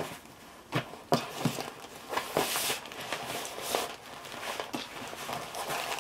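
Rustling and crinkling of a white plastic sheet wrapped around a rolled diamond painting canvas as hands unroll it and smooth it flat on a table, with several soft knocks and taps.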